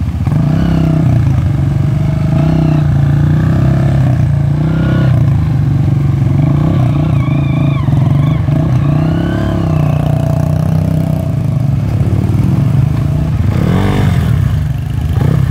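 Dirt bike engine running close by, a steady low note whose revs rise and fall slightly as the throttle is worked.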